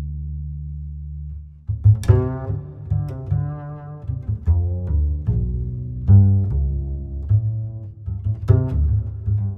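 Background music: a plucked bass line with sharp, clicky note attacks over low sustained notes.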